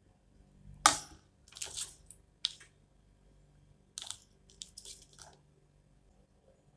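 Kitchen handling noises while chopped coriander is scattered over a pan of curry. A sharp knock comes about a second in, followed by several short rustling and scraping sounds.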